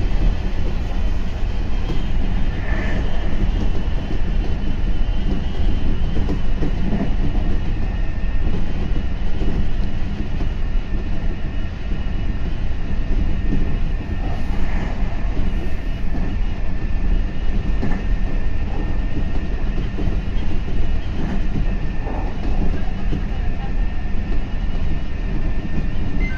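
Meitetsu 3500 series electric train running at speed, heard from inside the front car: a steady rumble of wheels on track, with faint steady high tones and a few light knocks.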